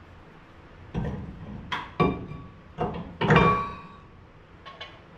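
Hand wrench clinking against metal as a brake line fitting is turned: a run of irregular metallic clanks, some with a short ring, the loudest about three seconds in.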